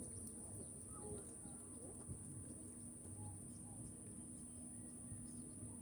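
A steady, high-pitched insect trill runs throughout, with a few faint, short bird chirps over it.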